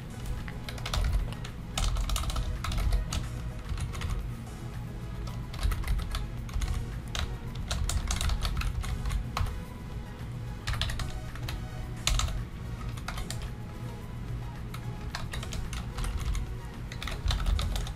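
Computer keyboard typing: short runs of key clicks with brief pauses between.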